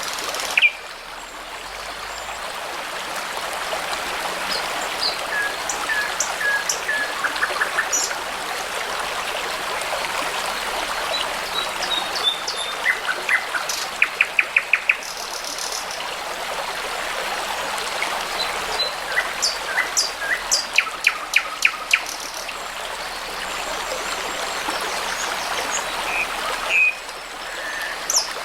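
Songbirds singing in short phrases, some of them rapid runs of repeated notes, over the steady rush of a babbling brook.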